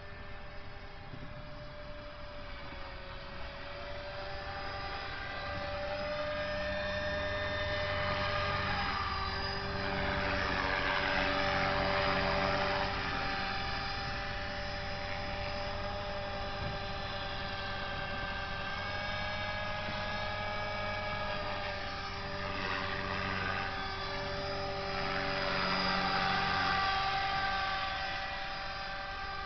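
Align T-Rex 450 electric RC helicopter flying, its motor and rotor giving a steady whine of several tones that shift a little in pitch as it manoeuvres. It grows louder as the helicopter comes close, about eight seconds in and again near the end.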